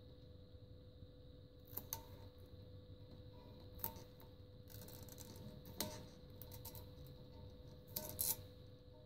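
Faint handling sounds of a vinyl rim stripe being peeled and pressed onto a motorcycle wheel rim by hand: light rustling with a few short sharp clicks, over a steady faint hum.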